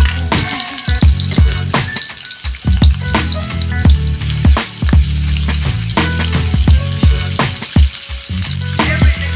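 Sliced onions sizzling and frying in hot oil in a wok, stirred now and then. Background music with a steady beat of about two a second runs over it, its thumps the loudest thing.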